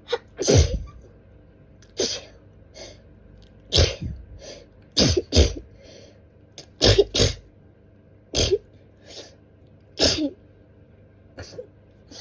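A woman's sneezing fit: about nine loud sneezes over some ten seconds, a few coming in quick pairs, with softer sounds between them. The fit is brought on by dust tickling her nose.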